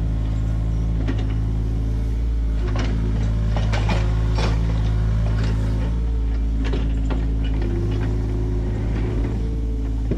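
John Deere 35G mini excavator's diesel engine running steadily, with irregular clanks and rattles from the machine's metal parts as it works.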